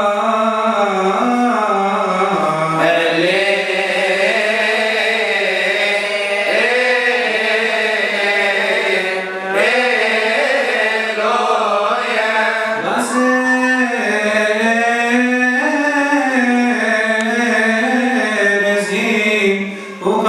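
Solo male voice chanting a Coptic Orthodox liturgical psalm into a microphone, drawn out in long, ornamented melismatic notes that bend and glide, with only short pauses for breath.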